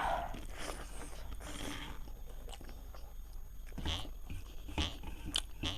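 A person chewing and biting food close to the microphone, with a few short, sharp bites toward the end.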